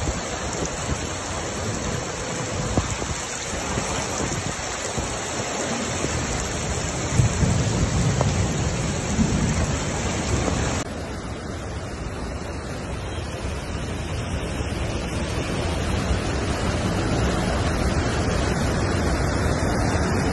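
Heavy rain and rushing floodwater make a continuous noise, with a low rumble swelling about seven seconds in. About eleven seconds in the sound changes abruptly, losing its highest hiss.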